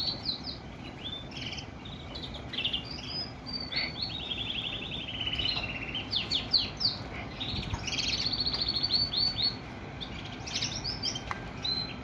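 Agate canary singing continuously: fast rattling trills and rolls, some sliding downward, mixed with short chirped notes.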